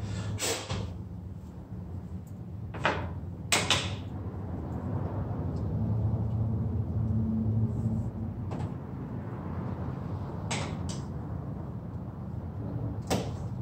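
Plastic push-pin trim clips on a car's front upper radiator cover clicking as they are popped up by hand, about six sharp clicks a few seconds apart, over a low steady hum.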